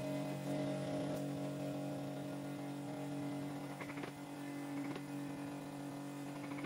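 Steady workshop machine hum, a motor running at an even speed, with a few faint clicks.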